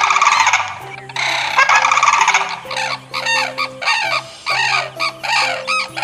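Cranes calling: loud, dense overlapping calls for the first two and a half seconds, then a run of shorter repeated calls, about two a second, over soft background music.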